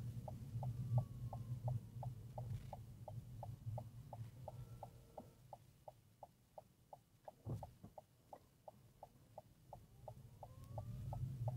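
A car's turn indicator ticking steadily, about three ticks a second, as the car signals a right turn. Low engine and road hum from inside the cabin fades about halfway through as the car slows, and there is one soft thump in the quieter stretch.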